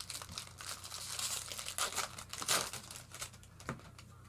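A baseball card pack's wrapper being torn open and crinkled by hand: irregular crackling and tearing, busiest in the first three seconds and dying down near the end.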